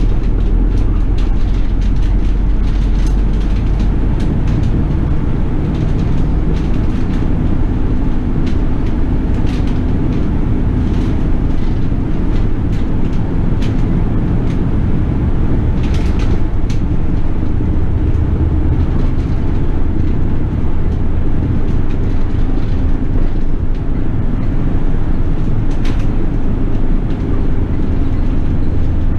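Toei city bus running along its route, heard from aboard: a steady low engine drone with road noise, and a few brief rattles or clicks.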